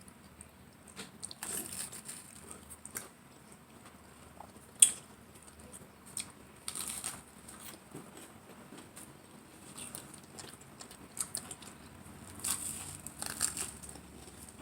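Eating sounds: irregular chewing and biting noises, with a sharp click about five seconds in.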